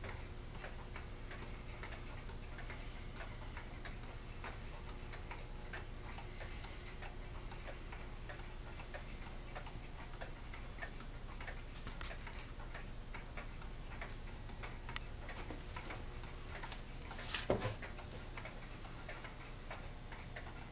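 Several antique pendulum shelf clocks ticking at once, their ticks falling out of step with one another, over a low steady hum. A single sharp knock stands out about seventeen seconds in.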